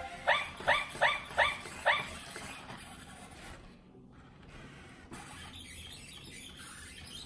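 Sony Aibo robot dog giving five short yipping barks through its speaker in quick succession, about one every 0.4 s, then falling much quieter after about two seconds.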